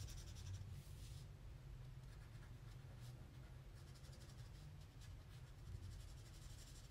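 Faint scratching of a felt-tip marker being stroked back and forth across paper already coated with crayon, in runs of quick short strokes.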